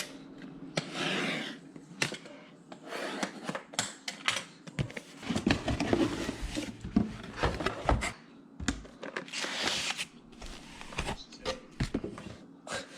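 Cardboard box and packaging being handled as a computer power supply is unboxed: rustling and rubbing with irregular light clicks and knocks.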